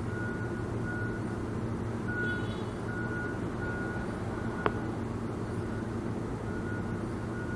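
Loud, steady mechanical hum from large machinery, with a high beep repeating about every 0.7 seconds like a backup alarm, pausing for a couple of seconds midway. A single sharp click about four and a half seconds in.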